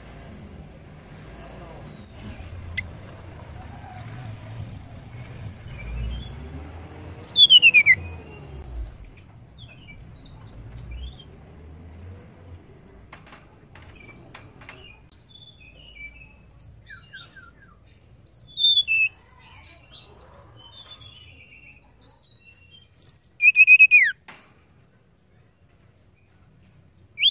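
Blue flycatcher (tledekan) calling: three loud bursts of sharp, high whistled notes, some sweeping steeply down in pitch, with fainter chirps between them. A low background rumble runs under the first half.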